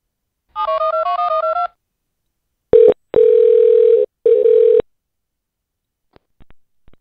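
Touch-tone telephone dialing: a rapid run of about ten keypad tones as a number is redialed. Then comes a steady ringing tone over the phone line in three pieces, the middle one the longest, followed by a few faint clicks.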